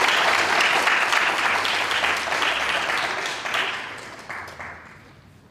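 Audience applauding, loud at first and then dying away about four to five seconds in.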